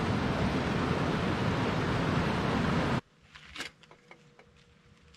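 Loud steady rushing noise, heaviest in the low end, that cuts off abruptly about three seconds in, leaving quiet with a few faint short clicks.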